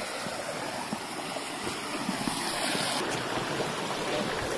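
Steady rush of flowing water from a waterfall stream, with a few faint small knocks.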